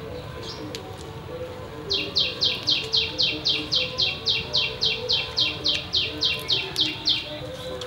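A bird calling a fast, even series of about twenty short, high, down-sliding notes, about four a second, starting about two seconds in and stopping shortly before the end.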